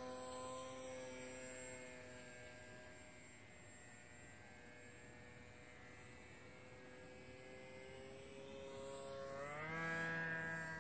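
Small engine of a Mini Funtana model aerobatic plane flying on control lines, a steady buzzing drone. It grows louder and jumps up in pitch as the plane sweeps past about nine to ten seconds in.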